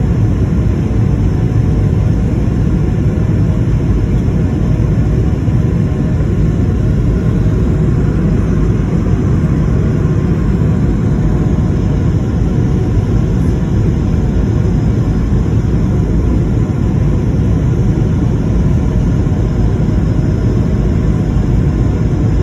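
Steady noise of an airliner's jet engines and rushing air heard inside the passenger cabin during the climb after takeoff, strongest in the low range and unchanging throughout.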